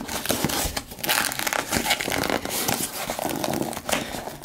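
Cardboard shipping box being pulled open, its glued flap tearing away from stringy glue with a dense, irregular run of crackles and rustles.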